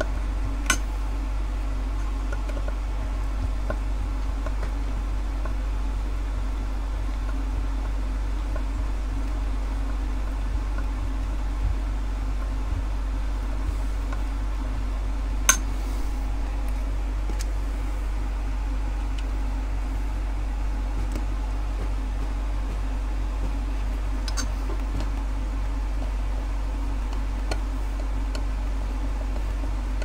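A few sharp, isolated plastic and metal clicks from a washing-machine motor's carbon-brush holders being handled and clipped back in, over a steady low background hum.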